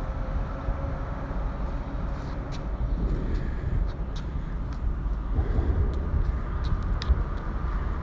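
Road traffic on the bridge overhead: a steady low rumble with a faint drifting tyre hum. Light ticks of footsteps on the concrete ledge are scattered through the middle.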